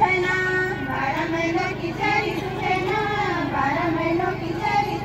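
Women singing a Pahari folk song into microphones, amplified through a PA loudspeaker, with a steady low hum underneath.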